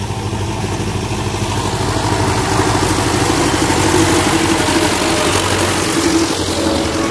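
Diesel engine of a wheeled farm tractor with a front loader driving past close by. The steady engine drone grows louder to a peak about four seconds in, then eases slightly as the tractor moves away.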